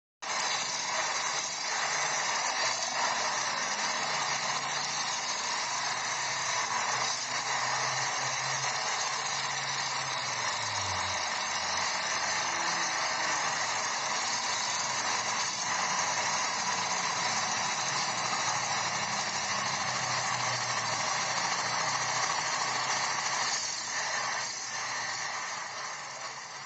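Honda Astrea 800 motorcycle engine running steadily with a lot of mechanical noise, getting quieter near the end; the engine is presented as healthy.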